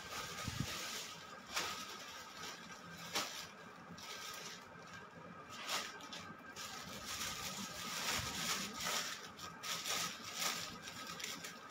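Clear plastic garment bags and clothes rustling and crinkling as they are rummaged through and handled, with scattered sharp crackles that come thicker near the end.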